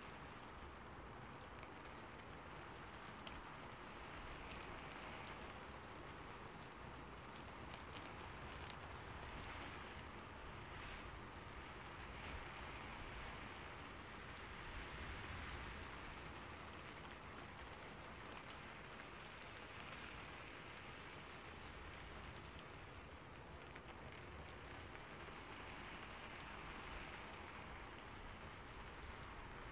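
Faint, steady rain-like patter: an even hiss that swells and eases slightly, with fine scattered ticks.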